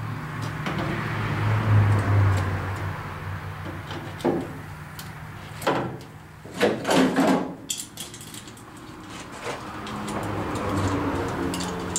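Sheet-metal floor patch being handled and fitted by hand in a truck's cab floor: scraping and clunks of metal against metal, the loudest about four, six and seven seconds in, with lighter clicks and rattles later, over a low steady hum.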